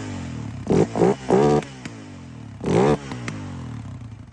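Yamaha Raptor 700R's single-cylinder four-stroke engine blipped from idle: four quick revs, the third held a little longer, each falling back to a loping idle, through an exhaust that blasts loudly.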